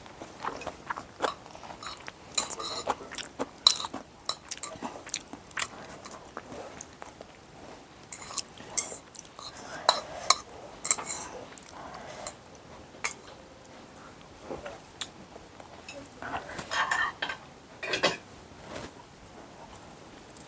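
Chopsticks clicking and scraping against a bowl of chicken noodles, with chewing between the clicks.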